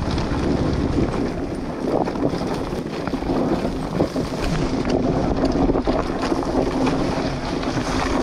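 Dirt bike engine running under way on a trail, with wind buffeting the microphone and frequent short knocks and rattles.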